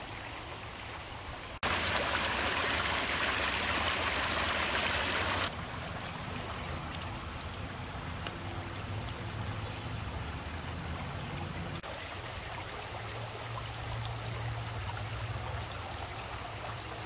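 Shallow creek water running and splashing over flat rock ledges and stones, heard in several short cuts. The loudest and brightest rush comes from about one and a half to five and a half seconds in. In the middle, a thin trickle of water falls from a mossy rock into the creek bed, with a few small drip ticks.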